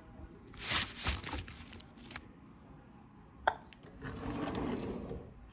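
Handling noises while food is served from aluminium takeaway trays onto a plate: a short burst of rustling about a second in and a single sharp click about three and a half seconds in.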